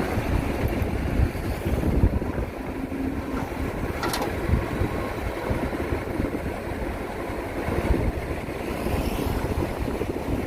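Excavator's diesel engine running with a steady, uneven low rumble. A brief click comes about four seconds in.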